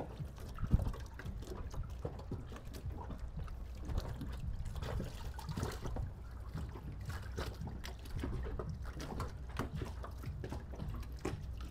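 Water lapping and trickling in small irregular splashes against a boat's hull, with one sharper knock just under a second in.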